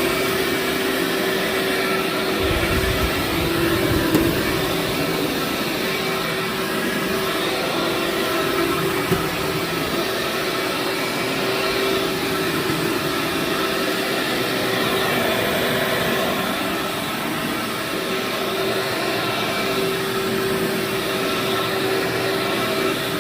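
Vacuum cleaner running steadily as it is worked over dirty carpet, a constant motor hum with an even rush of air. A brief low rumble comes a few seconds in.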